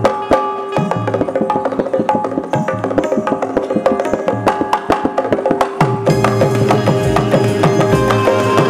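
Instrumental interlude of a live Marathi devotional song: quick percussion strokes over a held melody note, with the accompaniment growing fuller and deeper about six seconds in.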